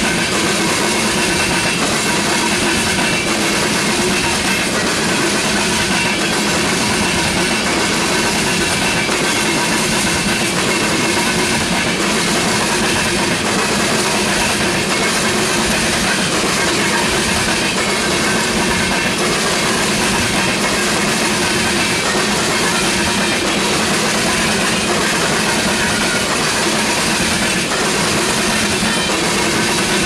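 Tank cars of a freight train rolling past: steady, loud noise of steel wheels running on the rails, unchanging throughout.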